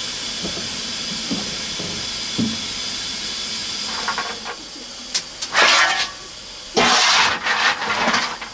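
Steady hiss of steam in the cab of a steam locomotive. From about halfway it is broken by several loud, rasping bursts of noise.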